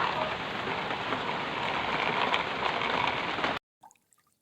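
Water running and splashing over a muddy toy car as it is washed, a steady hiss that cuts off suddenly a little over three seconds in.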